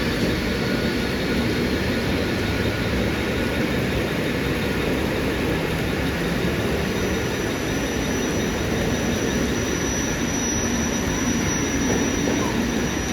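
Mumbai suburban electric local train running through the station with a steady rumble, a thin high whine joining about seven seconds in.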